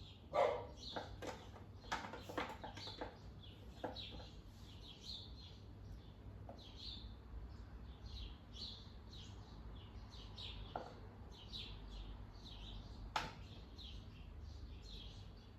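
Small birds chirping over and over, short high calls several times a second, with a few sharp knocks now and then, the loudest about thirteen seconds in.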